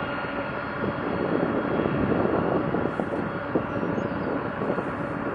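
Jet engines of a line of KC-135 Stratotankers taxiing: a steady, even engine noise with a faint steady whine.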